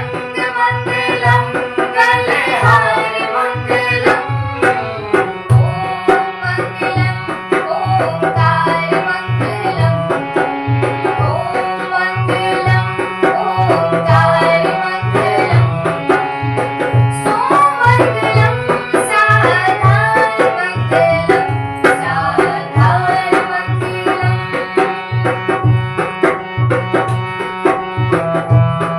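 Hindu devotional bhajan music: a steady hand-drum beat under a melody that bends and slides in pitch.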